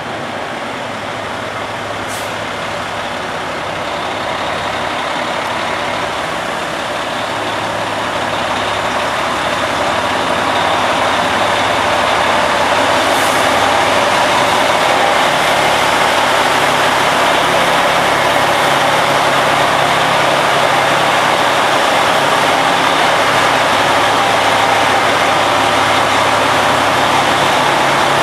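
Diesel tanker semi truck's engine running as it creeps into a touchless drive-thru truck wash, under a steady rush of high-pressure water spray that grows louder over the first ten seconds or so and then holds steady. Twice a short, faint air-brake hiss.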